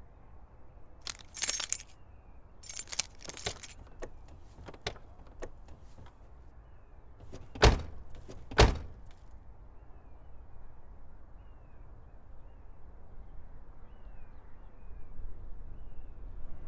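Keys jangling twice in quick rattles, then about halfway through two car doors slam shut about a second apart, heard from inside the Volkswagen hatchback's cabin. Faint bird chirps follow in the quiet cabin.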